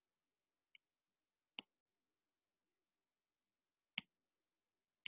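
Near silence broken by a few sharp taps of a stylus tip on an iPad screen: a faint one under a second in, then louder ones about a second and a half in, at about four seconds and at the very end.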